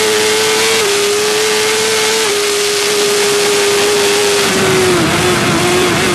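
Suzuki GSX-R1000 K5 superbike's inline-four engine running at high revs, heard onboard over heavy wind rush. The note dips briefly twice, about one and two seconds in, as if on quick upshifts. From about four and a half seconds the pitch drops and wavers as the throttle closes.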